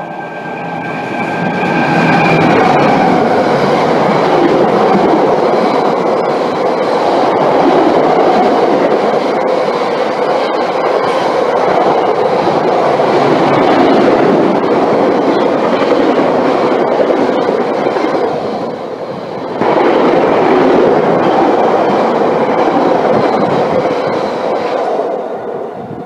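Class 60 diesel-electric freight locomotive passing at speed with a long train of tank wagons. Its noise builds over the first couple of seconds as it arrives, then gives way to a long steady rush and clatter of wagon wheels on the rails, which dips once and fades near the end.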